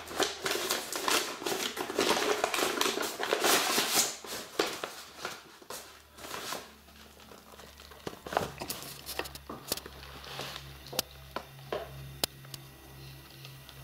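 Paper mailer packaging crinkling and rustling as it is handled, loud and dense for the first few seconds, then quieter with scattered light taps and clicks.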